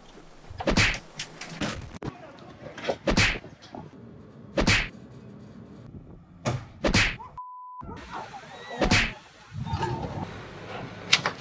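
A string of hard, sharp whacks and thuds from boat hulls striking another boat and a bank, about nine over the stretch, with a short steady beep about two thirds of the way through.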